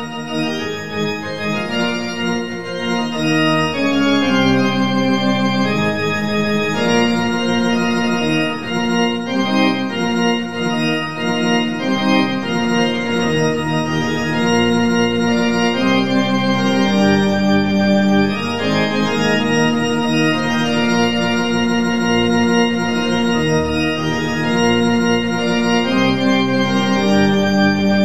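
Organ playing a goal-celebration tune of held notes and chords, changing every second or two.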